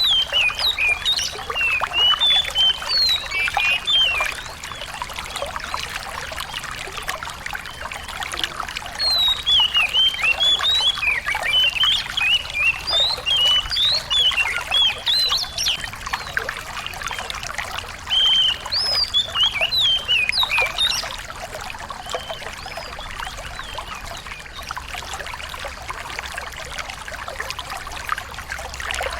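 Small songbird singing in three bursts of quick, high chirps and whistles, the longest in the middle, over steady trickling water.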